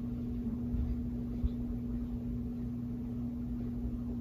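A steady low hum with low room noise, and a soft low bump about a second and a half in.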